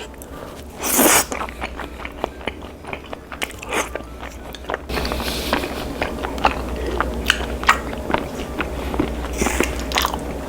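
A person takes a loud crunchy bite of crispy fried chicken about a second in, then chews it with many close crackling crunches.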